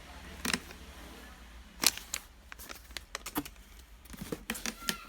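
Handling noises from unpacking a power tool's box contents: scattered clicks and taps of plastic and cardboard. One sharp click comes about two seconds in, and a quick run of small ticks near the end.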